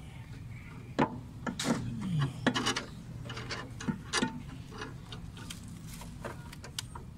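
Irregular clicks and knocks as a brake master cylinder is handled and fitted onto the brake booster's studs, with metal and plastic parts tapping together. A steady low hum runs behind them.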